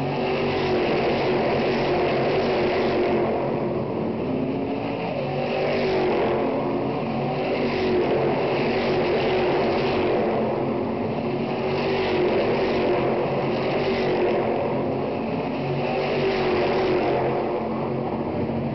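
Stock Car Brasil V8 race cars going past at racing speed one after another, the engine noise swelling and easing about every two seconds as each car goes by.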